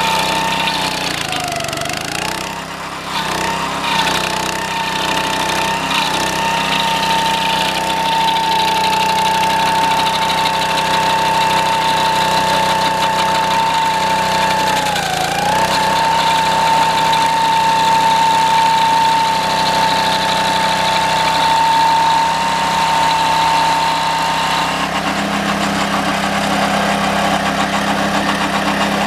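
Homemade stump grinder running on its 6.5 hp Honda engine with 6:1 gear reduction, its toothed cutting wheel working a green pine stump. Steady engine noise with a high whine that dips briefly in pitch about a second and a half in and again about fifteen seconds in, as the wheel bites and loads the engine down, with short knocks of cutting early on. Near the end the whine drops away and the sound turns rougher.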